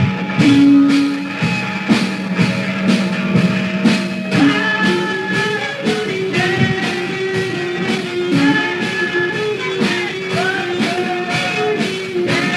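Hardcore punk band playing on a raw 1998 demo tape recording: electric guitar, bass and drums, with a steady beat of drum hits under held guitar notes.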